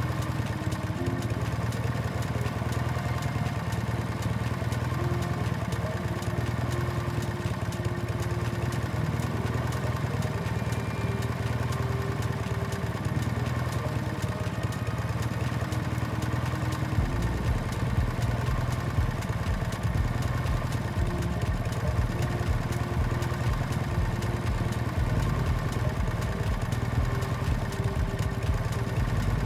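Motorbike engine running steadily while riding, its pitch shifting a little as the speed changes. A deeper low rumble joins about halfway through.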